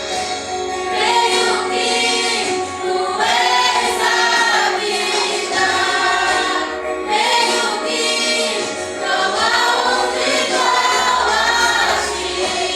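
A vocal group singing a Christian worship song together in Portuguese-language gospel style, over steady instrumental accompaniment.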